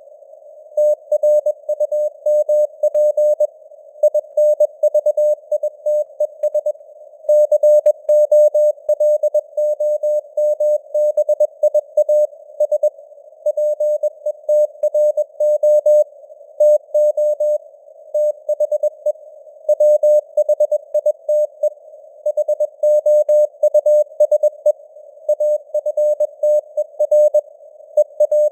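Morse code sent at 21 words per minute: a single mid-pitched beep keyed on and off in dots and dashes, over a narrow hiss of simulated radio noise that fills the gaps between characters.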